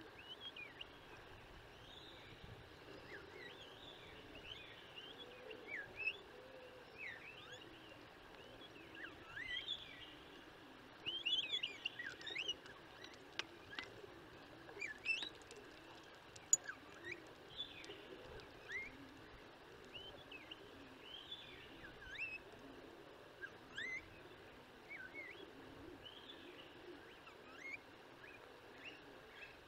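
Tristram's starlings giving short, scattered chirps and whistles, many of them quick rising or falling notes. The calls grow louder and more frequent around the middle.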